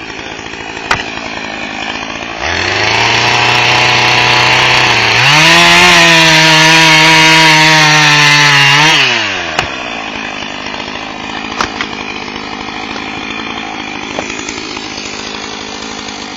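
Husqvarna 450 e-series two-stroke chainsaw engine running at a low speed, stepping up to a steady mid speed about two and a half seconds in, then revved higher and louder about five seconds in. It holds that high, even speed for about four seconds, then drops quickly back to a low speed.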